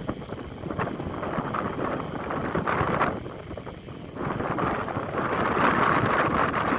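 Storm wind gusting and buffeting the microphone, a fluctuating rushing that eases briefly and then swells louder about four seconds in.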